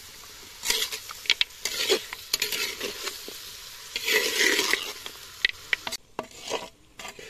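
Flat metal spatula stirring and scraping goat meat pieces as they fry in a thick masala in a pot, in irregular scraping strokes with sharp clinks of metal on the pot and sizzling underneath. The stirring thins out to a few faint clicks for the last second or so.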